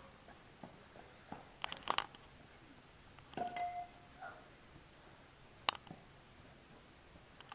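Doorbell chime sounding once, a short steady tone and then a fainter higher one, about three and a half seconds in. Knocks and clicks come before and after it, with the loudest cluster about two seconds in and a sharp click near six seconds.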